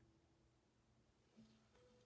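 Near silence with faint, soft background music: a held note fades away and a new lower note comes in about one and a half seconds in.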